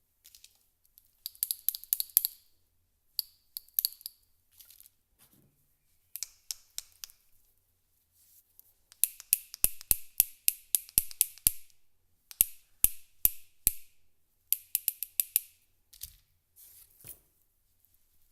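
LiFePO4 battery cell shaken by hand, something loose inside rattling in about six bursts of sharp clicks, fastest near the middle at around four clicks a second. The owner is unsure whether this rattle is normal.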